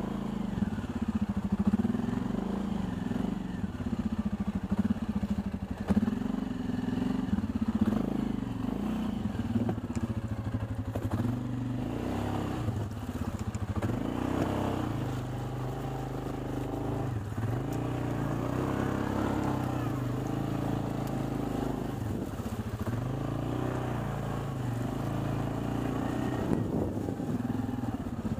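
Suzuki KingQuad ATV engine running at changing revs as the quad crawls through deep mud ruts, the pitch rising and falling with the throttle. Occasional knocks come through as it lurches in the ruts.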